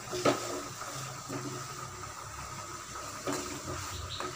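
Steel spoon stirring thick lentil-and-broad-bean kootu in a metal kadai on the stove, with a few light scrapes and knocks against the pan over a steady wet sizzle.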